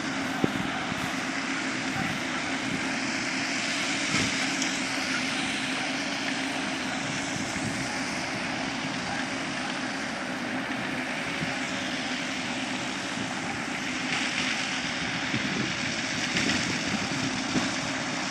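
Tractor engine running steadily, powering a F.lli Merlini M60 manure spreader with two vertical beaters as it spreads manure on a meadow.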